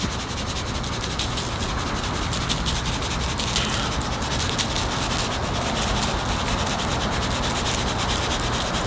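Dry seasoning shaken from a plastic shaker bottle onto raw pork chops: a steady, rapid rasping rattle of granules.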